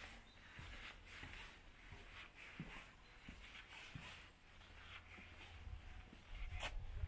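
Faint footsteps scuffing across a wooden plank bridge deck at a walking pace, over a low rumble.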